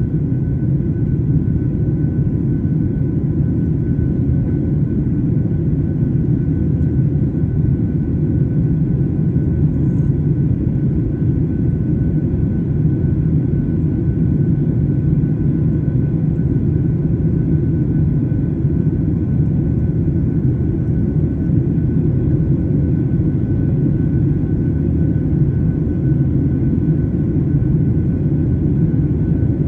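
Boeing 737-800 jet engines (CFM56-7B turbofans) running under power, a steady low rumble with a faint steady whine above it.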